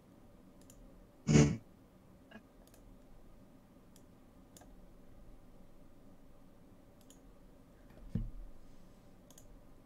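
Scattered faint clicks from a computer mouse and keyboard, with one brief louder sound about a second in and a softer thud near the end.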